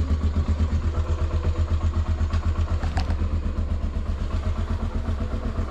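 Honda Tornado 250 motorcycle's single-cylinder four-stroke engine idling with a steady, quick, even pulse. A single sharp click comes about three seconds in.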